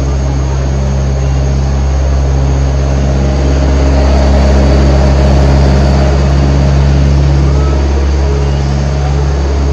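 Zoo road-train tram running steadily along a path, heard from one of its towed carriages: a continuous low engine hum that grows a little louder about halfway through.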